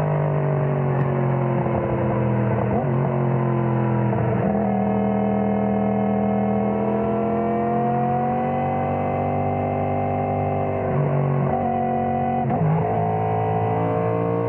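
Yamaha MT-10's crossplane inline-four engine running. Its pitch slowly falls, then rises, and several times it jumps abruptly to a new pitch.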